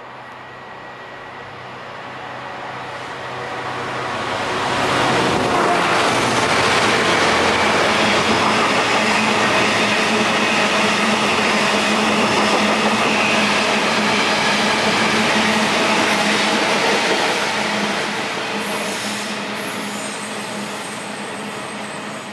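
A train of yellow wagons passing below and running away. The noise builds over the first five seconds, holds as a steady, loud rumble of wheels on rail, and eases off over the last few seconds.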